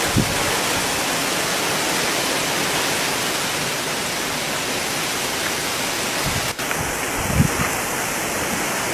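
Steady dense rush of a heavy rainstorm with strong wind, a few brief low thumps in it.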